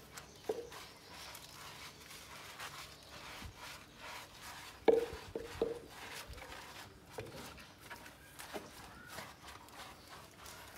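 A handheld scrub brush rubbing through a goat's wet, soapy coat in faint scratchy strokes, with a few light knocks, the loudest about halfway through.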